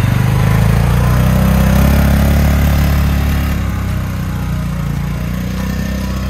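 Polaris Ranger utility vehicle's engine running as it drives off. The note rises slightly about half a second in, and the sound grows fainter after about three and a half seconds as the vehicle moves away.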